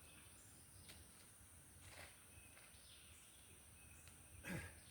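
Near silence: faint outdoor background hiss with a few soft ticks, and a short voice sound near the end.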